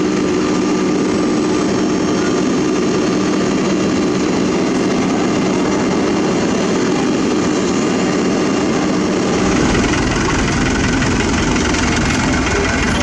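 Heavy diesel construction machinery running steadily. About two-thirds of the way through, a deeper low rumble joins in.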